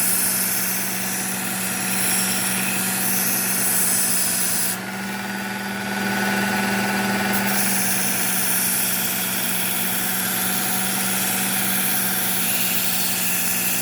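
Work Sharp Ken Onion electric belt sharpener running with a coarse 120-grit Cubitron belt, a steel knife blade being drawn across the moving belt: a steady motor hum with a grinding hiss that lets up briefly about five seconds in.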